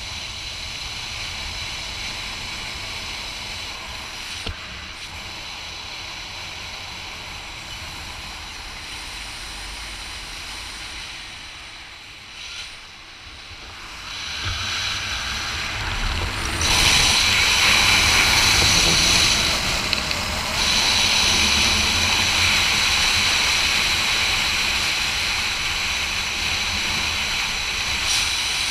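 Steady wind noise on the camera microphone of a skydiver flying under an open parachute. It swells about fourteen seconds in and is loudest from about seventeen seconds on.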